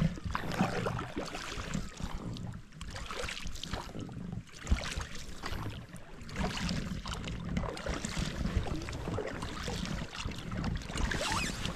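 An inflatable rowboat being rowed on a lake: oars dipping and splashing and water lapping, with some wind rumble on the microphone and a single sharp knock about five seconds in.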